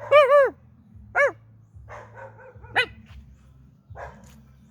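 A dog barking: three sharp barks over about three seconds, the first the loudest.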